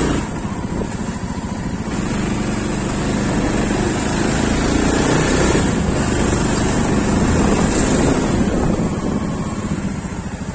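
Motorcycle engine running steadily, with wind buffeting the microphone.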